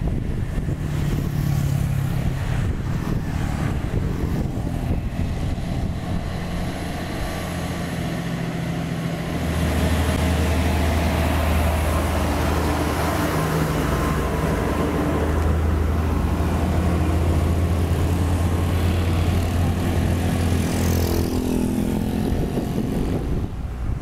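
UD Trucks Quester CGE 370 8x4 self-loader truck driving past under load with an excavator on its deck. Its diesel engine is heard approaching, with a strong low drone from about halfway through while it passes close by, then fading away near the end.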